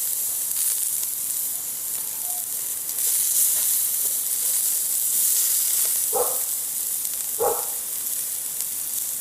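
Asparagus spears sizzling over a hot grill, a steady hiss. Two brief sharp sounds stand out, about six and seven and a half seconds in.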